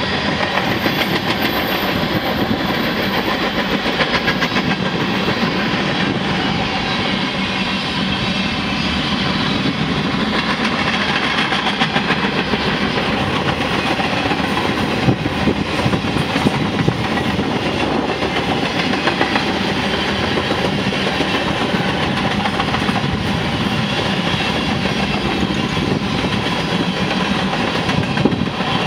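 Freight train cars rumbling past: a steady roll of steel wheels on rail, with scattered clicks and clanks from the wheels and couplings.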